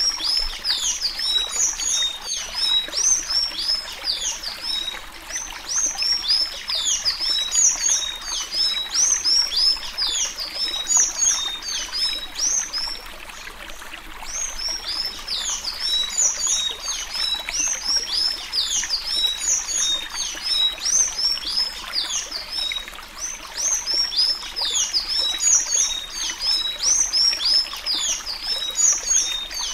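Sanhaço-azul tanager singing its 'suí suí' song in the Alagoas style: a long, fast run of high, squeaky, down-slurred notes. The song breaks off for about two seconds a little before halfway, then resumes over a steady hiss.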